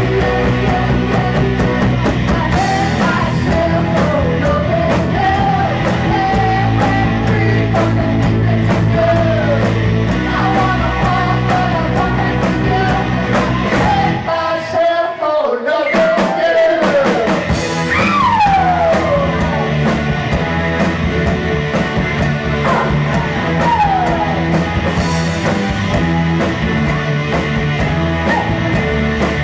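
A rock band playing live, with electric guitar, drums and singing. About halfway through, the low end drops out for about two seconds, and then comes a run of bent, falling guitar notes.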